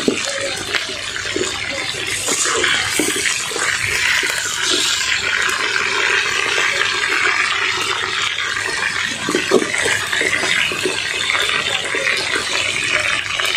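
Chicken pieces sizzling in hot oil in a wok on high heat, a steady hiss, with a few light scrapes and knocks of a slotted spatula turning and lifting them.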